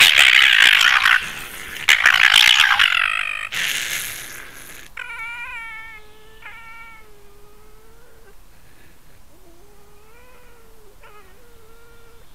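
Two raccoon dogs fighting: two loud bursts of harsh screaming in the first three seconds or so, a further rough snarl, then fainter high whining calls that bend up and down in pitch until near the end.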